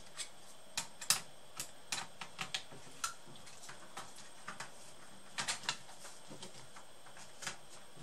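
Irregular plastic clicks and taps as a Lenovo G50 laptop's palmrest top cover is pressed down onto the base and its clips snap into place.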